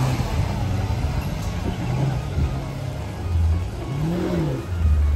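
Toyota Hilux engine revving under load as it climbs a steep off-road incline, its pitch rising and falling several times with the throttle.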